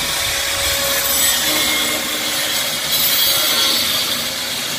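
Handheld angle grinder running under load, its disc cutting along the edge of a rectangular hole in a wooden table top: a steady motor whine under loud cutting noise.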